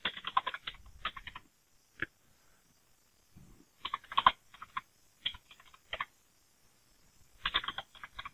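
Computer keyboard typing in several short bursts of keystrokes with pauses between, as short terminal commands are entered.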